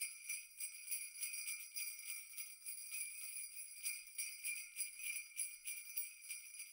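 Jingle bells shaken in a quick, even rhythm, a bright jangle of several strokes a second.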